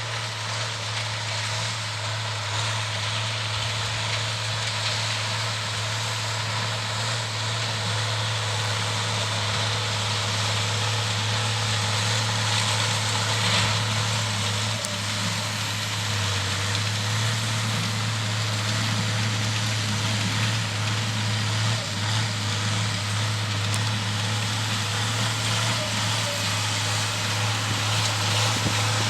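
IHC 1246 tractor's six-cylinder diesel engine, mildly tuned to about 170 hp, running steadily under load while hauling silage, its level creeping up slightly over the stretch.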